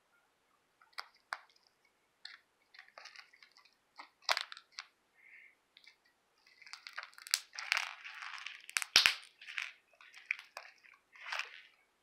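Clicky slime being squished and worked, giving irregular sharp clicks and crackling pops. They are scattered at first and come thickest in the second half.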